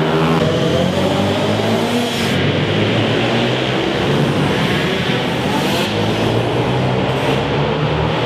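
Pit bike engines revving hard on an indoor track, their pitch rising and falling with the throttle, with rising sweeps near the start and again about halfway through.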